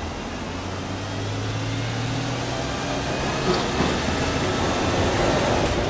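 Subaru Legacy B4 3.0R's EZ30 3.0-litre flat-six running steadily, heard at the twin exhaust tips. It grows a little fuller and louder over the last couple of seconds, with two short ticks about halfway through.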